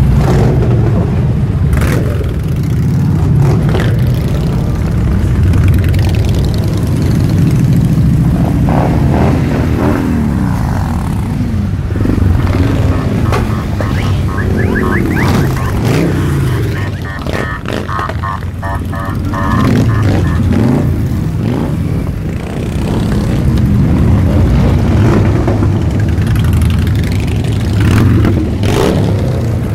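A stream of Harley-Davidson V-twin motorcycles rides past close by, engines running and revving up and down over mixed traffic. For several seconds midway a rapid high beeping sounds over the engines.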